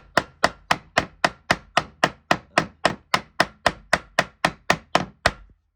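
Rapid, evenly spaced hammer blows, about four a second, from a steel mountain-climbing hammer peening a steel rivet head on an anvil to tidy the mushroomed head. The blows stop shortly before the end.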